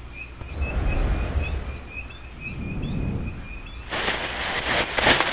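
Rapid, repeated bird-like chirps over a low rumble; a rush of hissing noise comes in about four seconds in.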